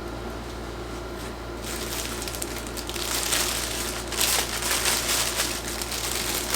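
Clothing packaging crinkling and rustling as a garment is folded and put back into it, getting louder about two seconds in.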